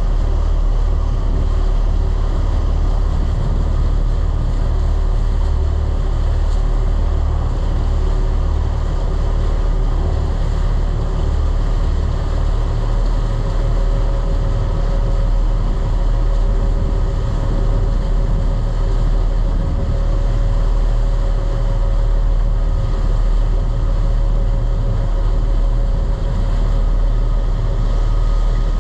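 Large party fishing boat's engines running steadily under way, a constant low rumble, with water rushing past the hull.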